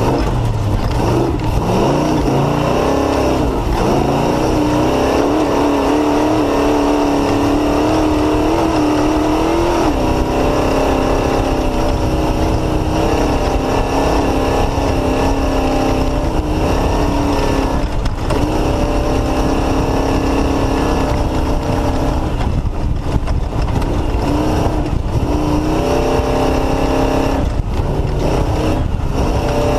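Off-road race vehicle's Mullenix-built engine running hard at racing speed, its pitch climbing and falling with the throttle. There are brief lifts off the throttle about two-thirds of the way in and several more near the end.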